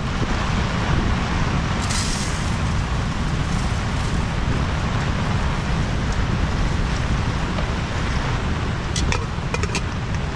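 Steady roar of heavy rain and wind from a severe tropical storm, with a deep rumble underneath. A brief hiss about two seconds in and a few sharp clicks near the end.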